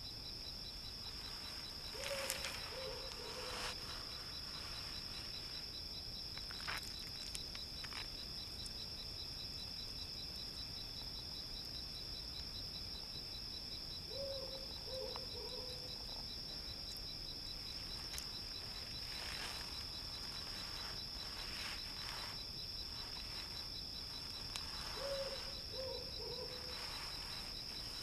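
Desert ambience of insects: a steady high insect drone and an evenly pulsing cricket chirp. A short low bird call sounds three times, about eleven seconds apart, with a few faint ticks and rustles in between.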